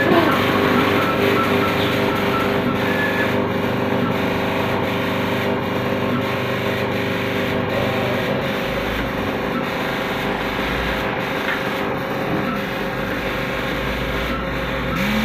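Tally Genicom / Printronix P8XX/T6800 series line matrix printer printing: a steady rasping mechanical buzz with brief regular breaks about once a second. It is likely printing slower than its rated speed.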